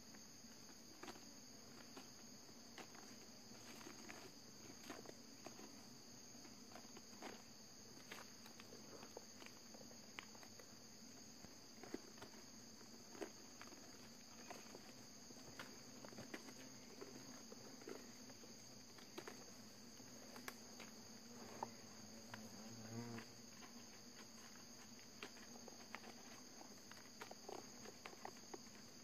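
Steady high-pitched drone of forest insects, with faint scattered crackles as the papery wasp nest is pulled apart in gloved hands. A brief low buzz about three-quarters of the way through.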